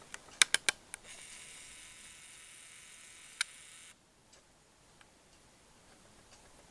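Handheld video camera being handled: a quick run of sharp clicks, then a steady high whir for about three seconds that cuts off suddenly, with one more click partway through.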